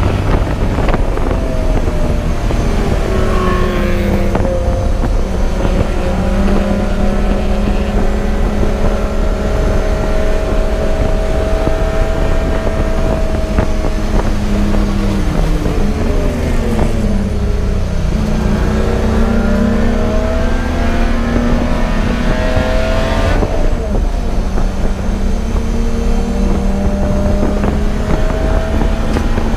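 Race car engine running hard on track with a constant low rumble. Its pitch holds high, falls away around the middle as the car slows, climbs again, drops suddenly at a gear change, then climbs once more.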